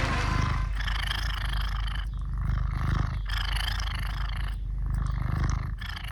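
Domestic cat purring close to the microphone, a low rumble that comes in cycles about a second long with brief breaks between them. The tail of a song fades out at the start.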